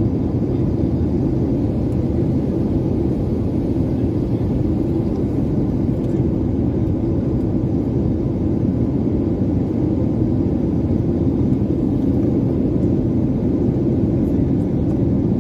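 Steady cabin noise of a twin-engine jet airliner in flight, heard from a window seat: the wing-mounted turbofan and the rushing airflow make an even, low rumble.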